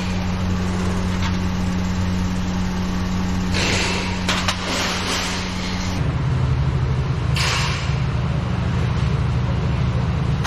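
An engine running steadily, its pitch dropping about six seconds in, with a few short bursts of hiss over it.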